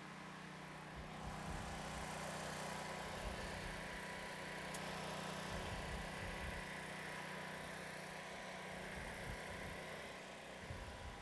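Steady drone of distant racing engines over a background rumble and low hum.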